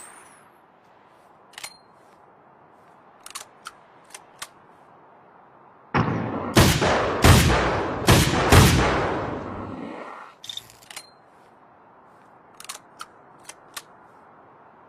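Springfield Armory M1A semi-automatic rifle fired rapidly, about five shots in three seconds, each with a long echoing tail. Short faint clicks come before and after the shots.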